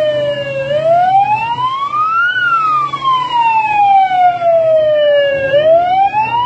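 Police siren in a slow wail, rising over about two seconds and falling over about three, then climbing again near the end, with a steady low hum beneath it.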